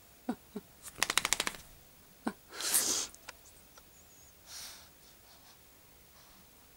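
Small dog waking up: a quick rattle of about eight sharp clicks in half a second, typical of a dog shaking its head with its ears flapping. A short noisy blast of breath like a sneeze or snort follows a second or so later, then a fainter one.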